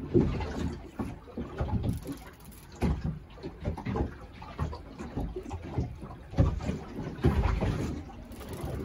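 Wind buffeting the microphone and choppy water slapping against the hull of a small boat, in uneven low surges and knocks.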